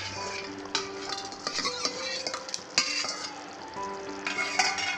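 Fried paneer being stirred into a simmering spinach gravy in a pan: a steady sizzle with several sharp knocks of the stirring utensil against the pan.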